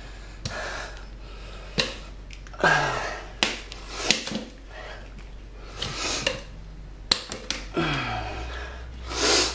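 Steel tire irons knocking and clinking against a motorcycle wheel rim as the tire bead is pried, with a few strained breaths between the knocks.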